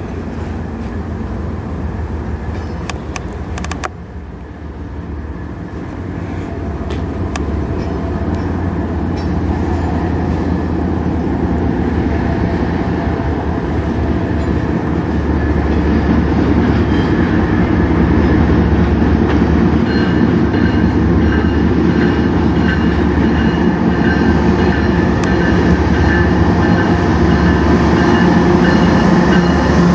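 Diesel locomotives of a CN freight train approaching on the near track, their engine drone growing steadily louder as the lead units draw near, with faint high steady tones joining in about two-thirds of the way through.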